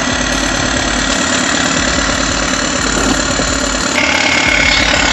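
Bulldozer's diesel engine running steadily, with a thin high whine that steps up in pitch about four seconds in.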